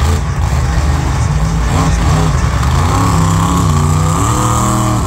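Monster truck engine running loud as the truck drives past close by, revving up with rising pitch over the last second or two.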